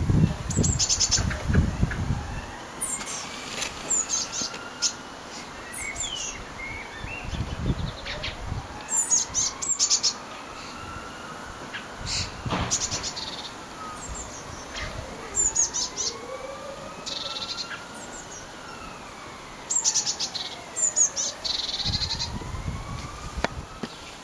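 Blue tits calling, with short high chirps in quick runs throughout. Gusts of wind rumble on the microphone near the start, about eight seconds in, and again near the end.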